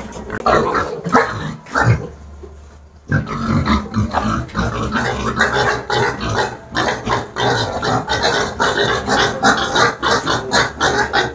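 Piglets squealing and grunting almost continuously, with a short lull about two seconds in.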